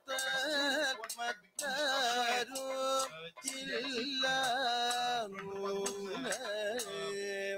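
Recording of Kathakali song: a singer holding long, wavering, ornamented notes, with short breaks between phrases.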